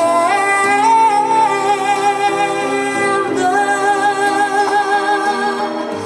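Stage show music with a female voice holding long wavering notes over a steady accompaniment; the sung line steps down to a lower note about halfway through.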